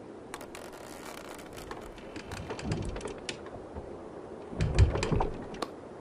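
Cartoon sound effects of a rope drawing a giant wooden slingshot: a run of quick clicks and creaks, with low thuds about halfway through and a louder, heavier cluster of thuds near the end.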